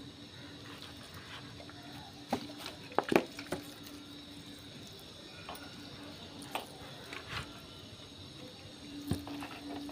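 Hands pressing and working damp potting soil in a steel pot, with scattered sharp clicks and knocks, the loudest about three seconds in, over a faint steady hum.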